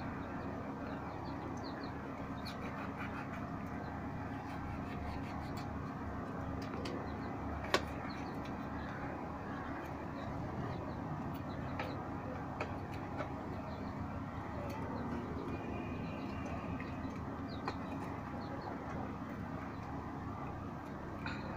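Faint scattered clicks of a kitchen knife slicing onion and red pepper by hand over a steel bowl, with one sharper click about eight seconds in, over a steady outdoor background hum.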